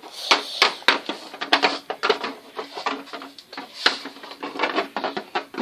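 Plastic toy dollhouse and its pieces being handled: a busy run of small clicks, taps and knocks.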